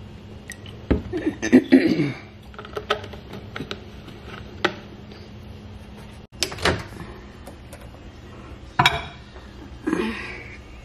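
Kitchen handling sounds: milk poured into a glass about a second in, then a run of sharp clicks and knocks as things are set on a stone counter. A microwave door clicks open near the end. A low steady hum sits underneath.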